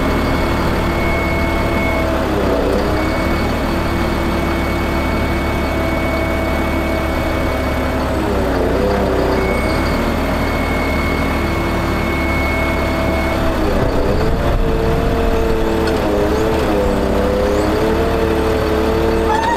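Caterpillar C7 diesel engine running to power a bucket truck's hydraulic boom. A steady drone carries a pitched hum that sags and recovers every few seconds as boom functions are worked, with a thin high whine cutting in and out.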